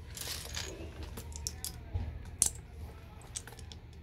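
Lego bricks being handled: scattered light plastic clicks and clatter, with a brief rustle near the start and one sharper click about two and a half seconds in.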